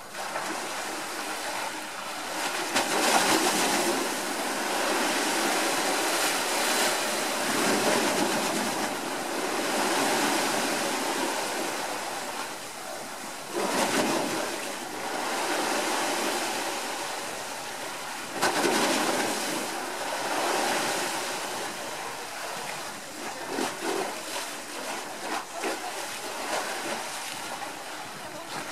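Sea waves washing into a narrow gap between stone walls and up against stone steps, surging and splashing in a series of swells. A sharper surge comes about halfway through and another a few seconds later.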